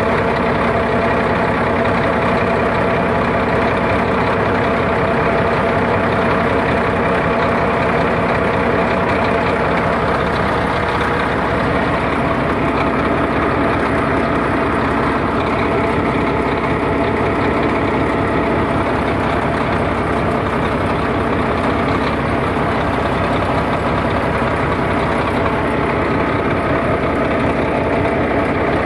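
Bulldozer's freshly overhauled diesel engine running steadily, with its note shifting slightly about a third of the way through.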